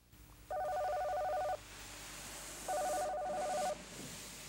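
A telephone ringing: two trilling rings of about a second each, a second apart.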